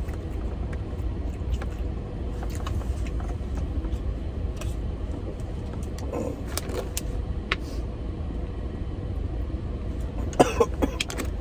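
Small clicks and mouth sounds of someone eating by hand, over a steady low rumble.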